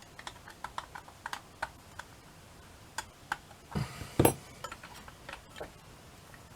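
Small metal clock parts being handled and screwed together by hand: light, irregular clicks and taps, with a louder clatter about four seconds in.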